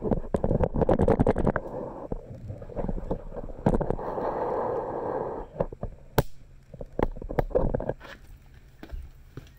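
Dodge Viper's V10 engine running, an uneven rumble from the exhaust broken by irregular sharp pulses, dropping to a much quieter low rumble about eight seconds in.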